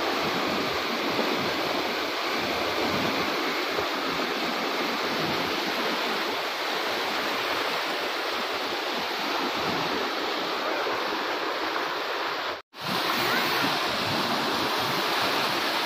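Muddy stream in flood after heavy rain, its fast water rushing past in a steady, even noise. The sound cuts out for a split second about thirteen seconds in.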